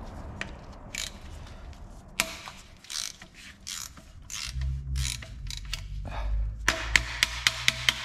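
Hand socket ratchet clicking as it is worked on a bolt at the front of an engine: scattered clicks and scrapes, then a quick run of sharp clicks near the end. A low hum comes in about halfway.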